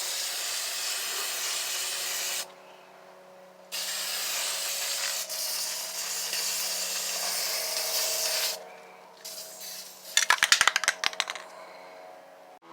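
Aerosol can of rust reformer spraying in two long hisses with a short break between them. Near the end, a quick run of sharp rattling clicks.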